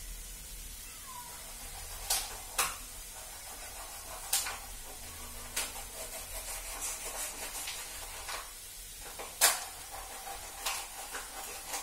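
Steel spoon stirring grated coconut cooking in ghee and sugar in a non-stick pan, with a faint steady sizzle and now and then a sharp click of the spoon against the pan.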